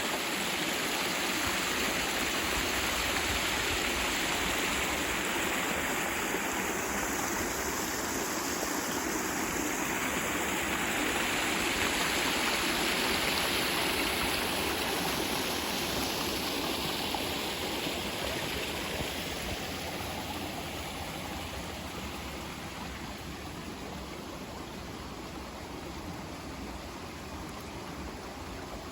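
Creek water flowing steadily, a continuous rushing that grows somewhat softer over the second half.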